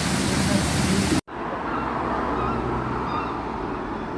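A steady rushing noise that cuts off abruptly about a second in, followed by a calmer outdoor street ambience: a murmur of distant voices with a few faint high chirps and a low hum.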